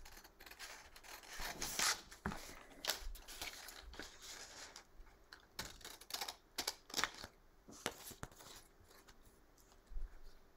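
Scissors cutting through graph paper backed with plain paper: an irregular string of short snips with paper rustling between them.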